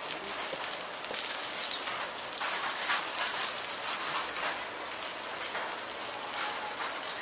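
Mackerel fillets sizzling on a wire grill over a coal-briquette fire, a steady hiss dense with small crackles and pops.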